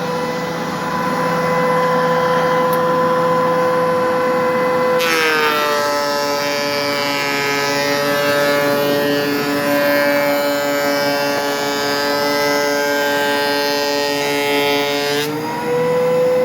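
DeWalt DW735 thickness planer running loudly with a steady whine. About five seconds in a board is fed through: the motor's pitch dips under the load and a dense cutting hiss takes over for about ten seconds, then stops near the end as the board exits and the whine rises back to full speed.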